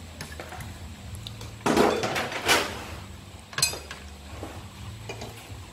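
Metal spoon and fork clinking and scraping on ceramic plates while food is served onto rice: a few separate clinks and scrapes, the loudest about two seconds in.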